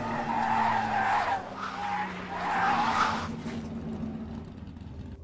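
Film sound effect of race-car tyres skidding and squealing, in three swells that fade after about three seconds, over a low steady hum.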